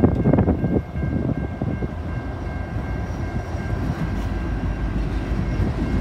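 Freight train arriving at a level crossing, led by an EMD SD70M-2 diesel locomotive. There are irregular knocks in the first second, then a steady low rumble that swells about four seconds in as the locomotive passes.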